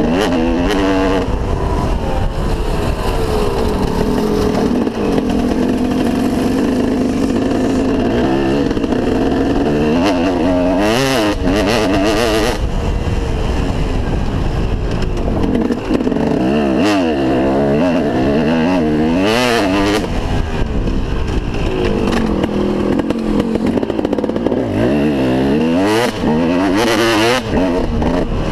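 2003 KTM 250 SX two-stroke single-cylinder motocross engine, ridden on a dirt track, revving up and down with the throttle and gear changes. Its pitch rises and falls many times.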